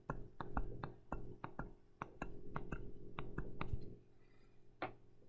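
Stylus tip tapping and clicking on a tablet screen during handwriting, a quick irregular run of taps that stops about four seconds in. A steady low hum runs underneath.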